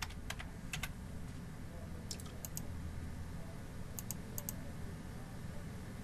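Computer keyboard typing: scattered sharp key clicks, often in quick pairs, in a few short bursts over a low steady hum.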